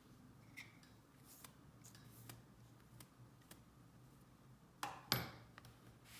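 Light scattered clicks and taps from handling a laptop and small tools, with a sharper double clack about five seconds in.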